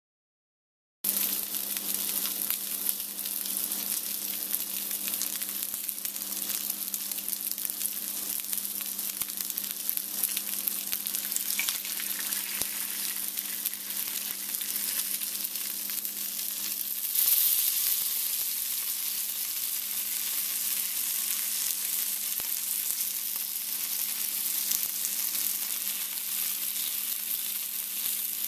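Irish bacon rashers, sausages and white pudding sizzling in a little olive oil in a non-stick frying pan. The steady frying hiss starts about a second in and flares louder for a moment a little past halfway.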